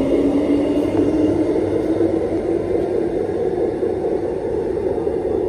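Electric suburban train pulling away from the platform: a motor whine slowly rising in pitch over a steady rumble, gradually getting quieter.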